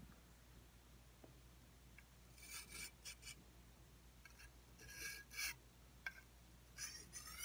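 Stainless-steel machete blade drawn along a fine sharpening stone: a series of short, faint scraping strokes in small clusters, starting about two seconds in and continuing near the end.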